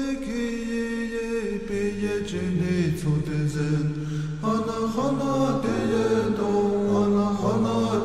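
Chanting music: slow vocal chant in long held notes that step to a new pitch every second or two, over a low sustained drone.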